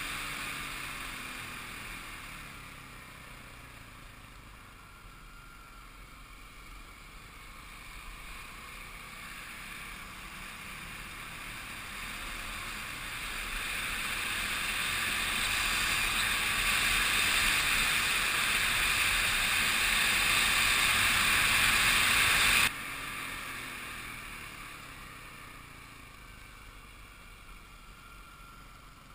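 Kawasaki KLX 250 single-cylinder four-stroke dirt bike engine running on the move, under a rush of wind noise. The rush swells through the middle and cuts off suddenly a few seconds before the end.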